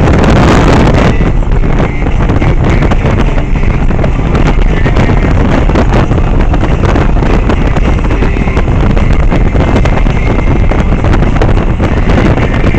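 Heavy wind buffeting on the microphone over a motorcycle engine's steady drone, riding at highway speed, with a louder gust in the first second.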